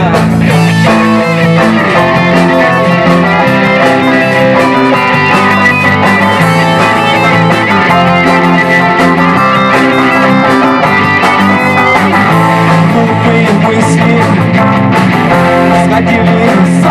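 Rock band playing an instrumental break with guitars leading, no vocals.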